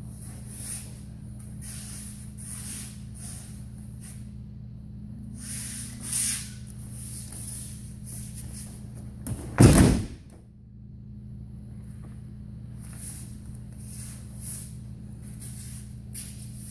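A judoka thrown onto the judo mats, landing in a loud breakfall about ten seconds in. Around it, soft shuffling of bare feet and judo gis on the mats over a steady low hum.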